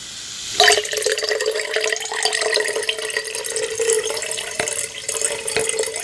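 Water from a bath bomb being poured from one container into another, starting suddenly about half a second in: a steady pouring stream with a held ringing tone.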